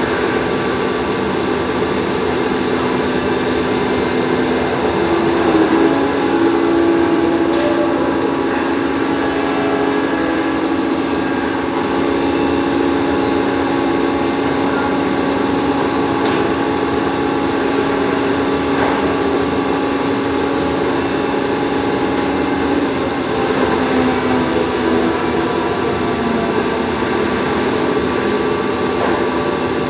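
CNC drilling machine running: a steady mechanical hum with a held tone that steps up in pitch about five seconds in and fades out a little after twenty seconds, with a few light clicks.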